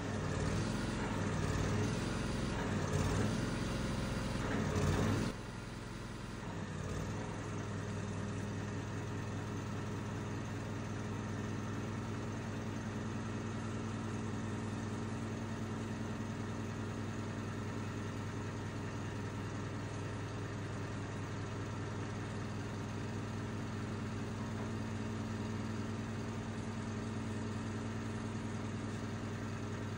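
An engine running steadily at idle, a low even drone. It is louder and more uneven for about the first five seconds, then settles.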